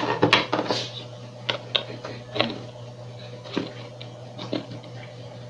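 Scattered small metallic clicks and light knocks as a volume potentiometer's lock nut and washer are fitted and tightened with pliers against a plywood panel. A steady low hum sits underneath.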